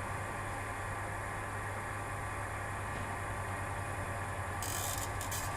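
Steady low hum of a cricket bowling machine's motor-driven wheels spinning between deliveries. A brief scratchy rustle comes near the end.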